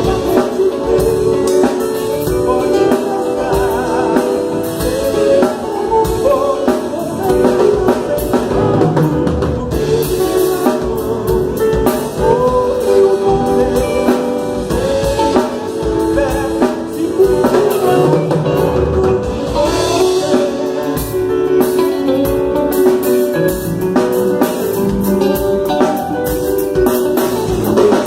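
Live worship band playing a song with drum kit, guitar and singing, run through as a sound check.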